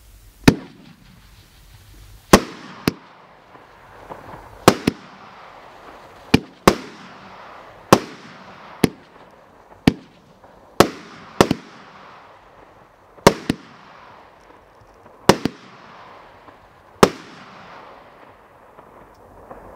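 A 200-gram consumer firework cake firing its shots into the sky: about eighteen sharp, loud reports at irregular intervals of roughly one a second, several in close pairs, with a steady hiss of burning stars between them.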